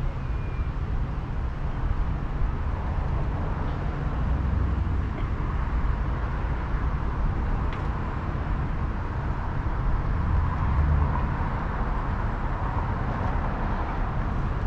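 Car running, a steady low rumble that swells briefly about four and ten seconds in.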